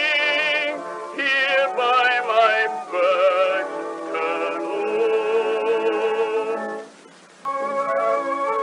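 A 1918 acoustically recorded popular song: a singer with wide vibrato over a small orchestra, sounding thin with no bass. After the singer's last held note there is a short pause near the end, and then the orchestra plays on alone.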